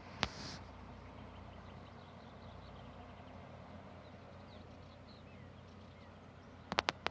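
Quiet rural outdoor ambience with a low steady rumble and faint, scattered bird chirps. A sharp click comes just after the start, and three quick clicks come near the end.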